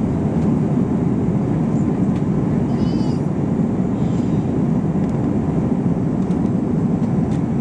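Steady cabin noise inside an Airbus A321-231 jet airliner: the rush of its engines and airflow, heavy in the low range. A brief, faint high-pitched squeal comes about three seconds in.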